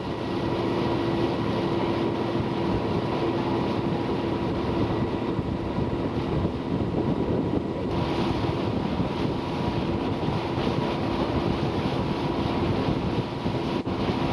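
Tour boat's engine running at a steady cruise, a constant hum, with wind noise on the microphone.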